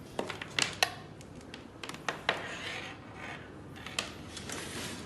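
Hands working metal cable connectors and screws on a laser marking machine: several sharp metallic clicks and clinks with some rustling in between.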